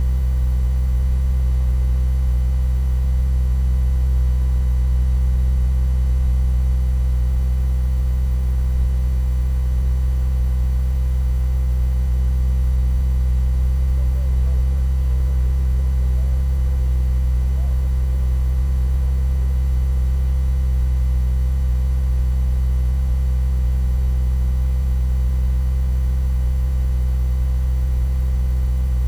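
A steady, loud low hum with several fainter steady tones above it, unchanging in pitch and level.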